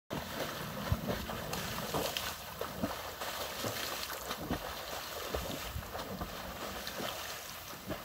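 A swimmer's arm strokes splashing in lake water: a run of short, irregular splashes.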